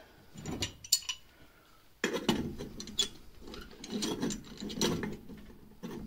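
Brass automatic air vent being screwed by hand into the threaded port of a cast-iron air purger, its pipe-taped threads scraping and grinding. A few clicks come first, then from about two seconds in a run of scraping strokes, one per turn.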